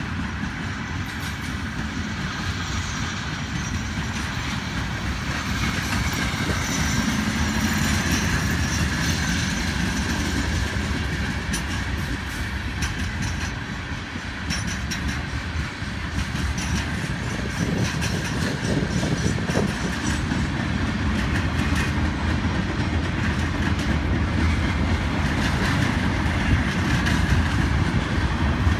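Norfolk Southern ballast train's hopper cars and gondolas rolling past close by: a steady rumble of steel wheels on rail, with clicks as the wheels cross rail joints, more of them in the second half.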